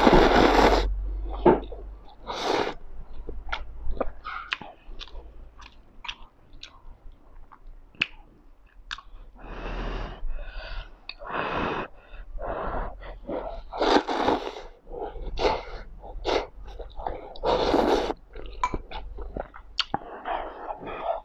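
Instant noodles being slurped and chewed, with a long loud slurp at the start and several shorter slurps later. Sticky chewing clicks fill the gaps between them.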